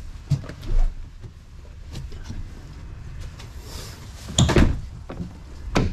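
Doors of a 2014 Ford F-250 Super Duty pickup being handled: a few light knocks and a dull thump early, a loud clunk of the door and latch about four and a half seconds in, and a sharp latch click just before the end.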